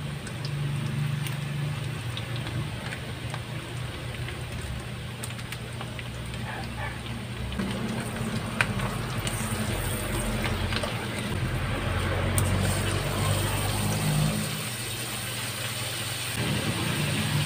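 Oil sizzling in a wok over a steady low hum, with a few light spatula scrapes and taps against the pan.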